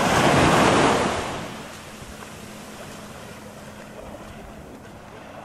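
A sea wave breaking on the beach, loudest in the first second and a half, then falling away to a steady quiet wash of surf.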